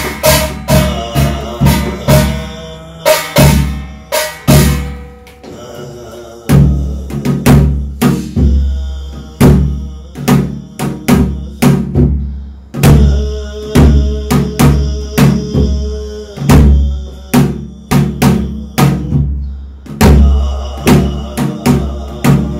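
Ritual music for a Korean shamanic gut: heavy, regular drum strikes with ringing metal percussion sounding between them. The music eases briefly about five seconds in, then picks up again.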